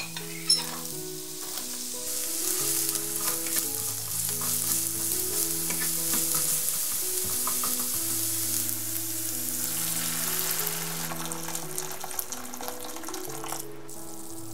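Diced carrots and spring onion sizzling in hot oil in a wok, stirred with a plastic spatula that clicks and scrapes against the pan; the sizzle stops suddenly near the end, when water has gone into the wok. Soft background music plays underneath.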